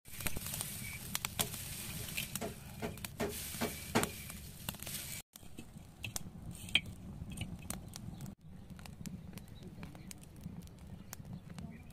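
Dry straw and brushwood crackling and popping as it catches and burns in the firebox of a clay outdoor stove, with rustling of straw as more is pushed in. The crackle is densest in the first few seconds and breaks off briefly twice.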